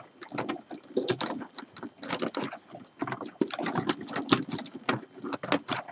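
Rolled paper weaving tubes rustling and clicking as they are worked by hand in and out of the paper-tube stakes of a basket. The sound is an irregular run of quick scratchy ticks and rustles.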